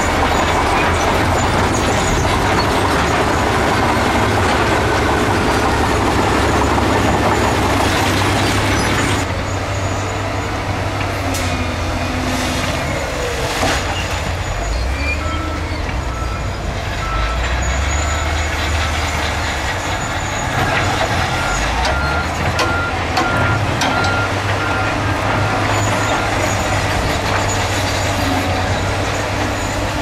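Heavy diesel earthmoving machinery running under load, with a loud, steady engine and mechanical din that eases slightly about a third of the way in. From about halfway, a reversing alarm beeps at an even pace.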